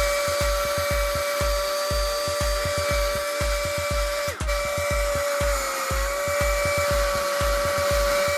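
A small high-speed electric rotary tool runs with a steady whine that breaks off for an instant about halfway and then dips slightly in pitch. Background music with a steady beat plays underneath.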